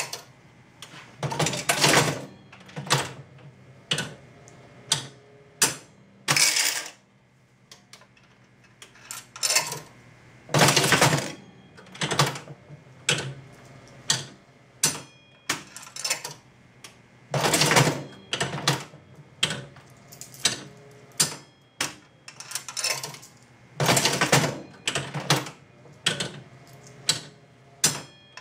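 Jennings Sun Chief five-cent mechanical slot machine being played over and over: a run of sharp metallic clicks and clunks from the handle mechanism and the reels spinning and stopping, with a louder clattering burst every few seconds.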